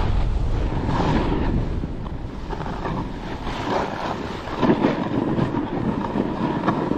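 Wind buffeting a head-mounted camera's microphone during a fast run down a snowy piste, over the hiss and scrape of edges sliding on the snow. The low wind rumble is heaviest at first and eases after about two seconds, while the gritty scraping carries on throughout.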